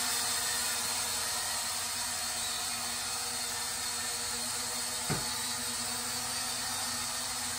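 Small toy quadcopter drone hovering in flight, its propellers giving a steady whirring buzz with a held hum. A brief click about five seconds in.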